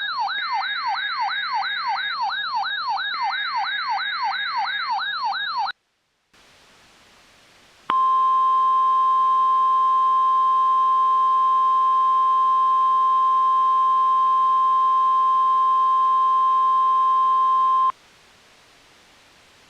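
An electronic yelp siren rising and falling about three times a second, cutting off sharply about six seconds in. After a short gap with faint hiss comes the NOAA Weather Radio 1050 Hz warning alarm tone: a steady, loud single tone held for about ten seconds, the signal that a warning broadcast follows.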